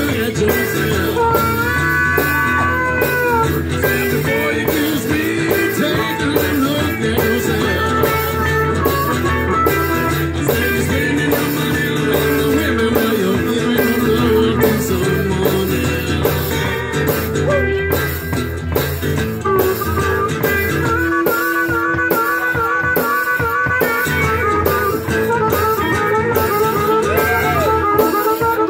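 Live blues band: a harmonica plays wavering, bending held notes over strummed acoustic guitar and electric guitar, with a steady beat.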